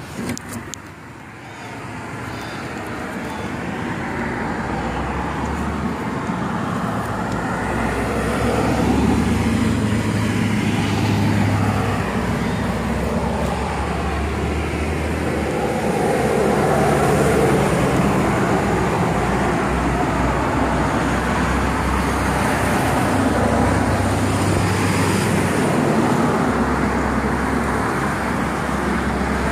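Road traffic or motor vehicle noise, a steady rumble that builds over the first eight seconds or so and then holds.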